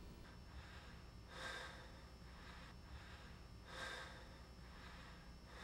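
Near silence broken by two faint breaths, one about a second and a half in and one near four seconds.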